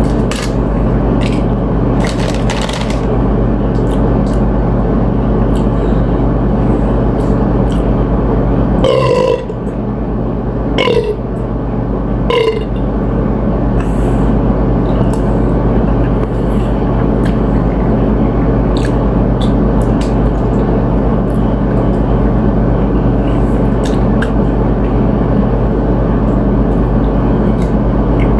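A steady, loud low hum runs throughout under scattered short crunching clicks of chips being eaten. About nine seconds in come three short pitched vocal sounds, like burps, spaced about a second and a half apart.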